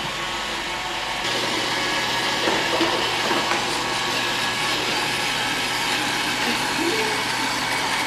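Roomba 761 robot vacuum running, its motor and brushes making a steady whir. About a second in, a low hum joins and the noise grows louder.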